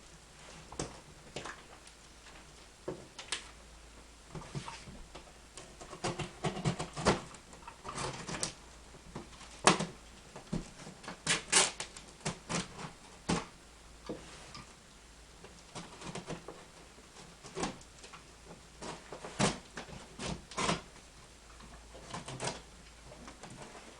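Irregular handling sounds of a package being unpacked: sharp taps, clicks and brief rustles of cardboard, paper and plastic, busiest about a quarter of the way in and again past the middle.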